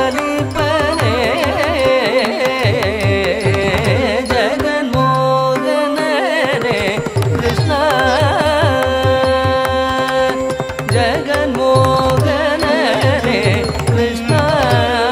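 Carnatic classical song accompanying a Bharatanatyam dance: a voice sings a richly ornamented, wavering melody over a steady drone and rhythmic percussion strokes. The percussion drops out briefly about five seconds in, then resumes.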